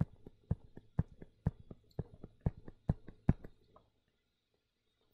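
A stylus tapping down and stroking on a drawing surface about twice a second, one tap for each short line drawn. The taps stop about four seconds in.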